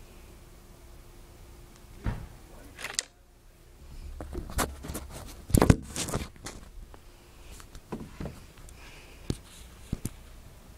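Handling noise: a series of irregular knocks and clicks, the loudest a little past halfway, as the camera is picked up and the air rifle and its pellet are handled while it is readied to fire.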